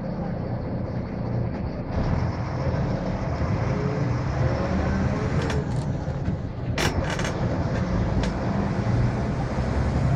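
Inside a Volvo B7R coach under way: the diesel engine drones steadily under road noise, getting louder about two seconds in, with a few short sharp clicks or rattles around six to seven seconds in.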